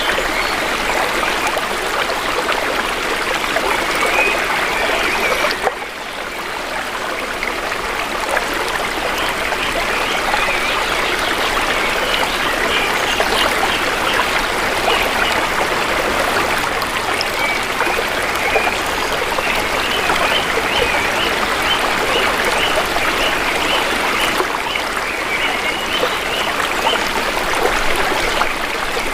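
Shallow river water flowing and babbling over stones, a steady rushing trickle that drops briefly about six seconds in. Short high bird chirps come now and then over the water.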